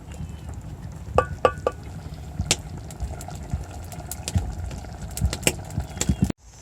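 A cooking pot over a wood fire, with a steady low rumble and many scattered small clicks and pops, plus a few brief metallic clinks a little over a second in.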